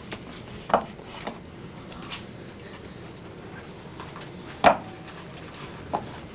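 White paper boxes being picked up and set down on a wooden tabletop, giving a handful of separate light knocks, the loudest about two-thirds of the way through.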